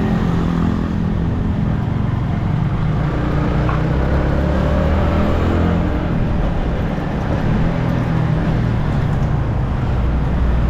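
Yamaha MT-15's 155 cc single-cylinder engine running through its stock exhaust. Its pitch rises for a moment about four to five seconds in.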